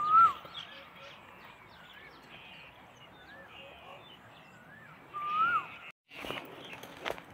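Wild birds calling: a loud whistled call that rises and then drops comes at the start and again about five seconds in, over fainter chirping of other birds. Near the end, after a sudden break, come crunching steps and rustling in dry grass.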